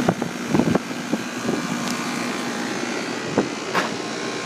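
2001 York central air conditioner's outdoor condensing unit running steadily: its condenser fan blowing air with a low hum under it. A few short knocks or clicks sound over it.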